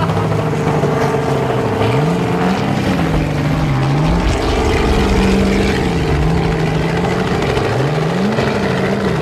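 Rally car engine revved up and down several times, rising and falling in pitch, as the car struggles to pull itself out of deep mud while being pushed free.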